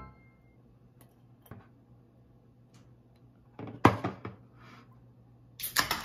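Ceramic plates knocking and scraping against a stainless steel counter as they are handled. There is a cluster of sharp clatters about three and a half seconds in, and another near the end, with a few faint clicks before them.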